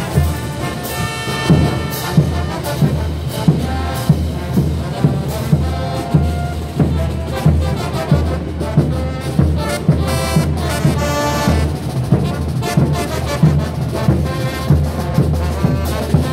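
Bolivian street brass band playing a morenada: trumpets, trombones and sousaphones in loud chords over a steady beat of bass drums and crash cymbals.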